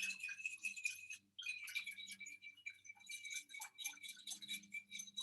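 A spoon clicking and scraping against a small bowl in quick, steady strokes while stirring borax into water to dissolve it, with a brief pause about a second in.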